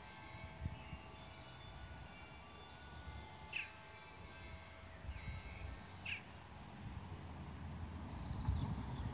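Small birds chirping repeatedly in the surrounding trees, with two louder, sharp falling calls about three and a half and six seconds in. Under them a steady low rumble grows louder near the end.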